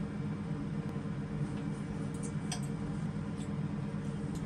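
Knives and forks clicking lightly against dinner plates a few times, over a steady low hum.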